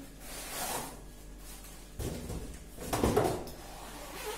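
Handling noise from a ring light stand's black fabric carry bag being worked with the hands: soft rustling, then two louder bumps, about two seconds in and again around three seconds.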